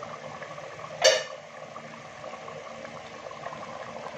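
Chana dal bubbling as it simmers in a clay handi, with one sharp clank about a second in, then a wooden spoon stirring through the thick dal.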